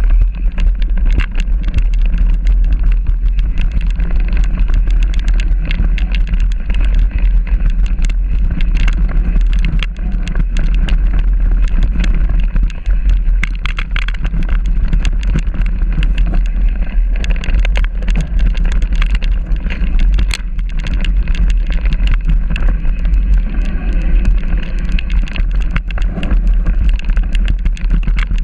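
Mountain bike riding over a rough dirt and stony trail, heard from the bike: a heavy continuous rumble with constant rattling and clicking from the bike and its tyres over stones.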